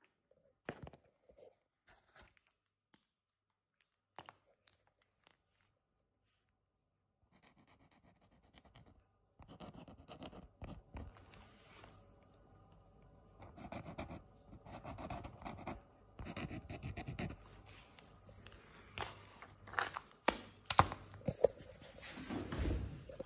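Irregular scratching and scraping with scattered clicks, sparse at first and continuous from about seven seconds in, getting louder toward the end.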